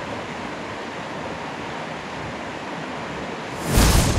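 Steady rushing of a river's current flowing over rocks. Near the end, a brief, loud burst of rushing noise cuts in for about half a second.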